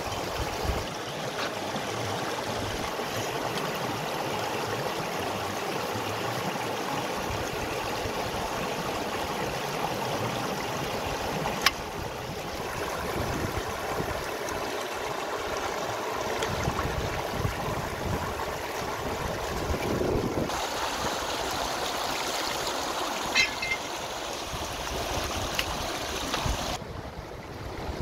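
Shallow stream rushing steadily over rocks, with a few sharp clicks from a cleaver cutting banana flower, the loudest about halfway through. Near the end the water sound grows duller and quieter.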